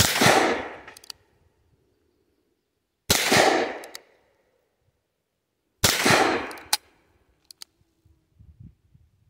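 Smith & Wesson M1917 .45 ACP revolver fired three times, about three seconds apart, each shot ringing out for about a second. A few short, sharp clicks come between the shots.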